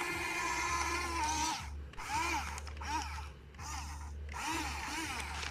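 Small electric motors of a remote-control toy excavator whining, the pitch rising and falling again and again as the arm and tracks move, over a steady low hum.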